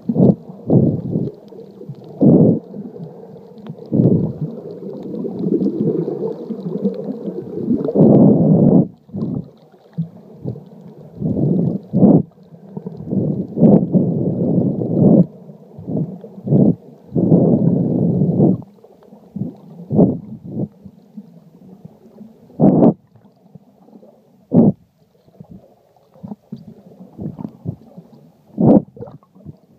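Muffled underwater sound picked up through an iPhone's sealed Lifeproof case: water sloshing and gurgling in long swells, with many dull knocks, the swells thinning out after the middle to sparser knocks.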